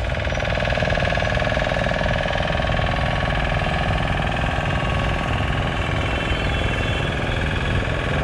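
An engine running steadily at close range with a rapid, even knocking beat.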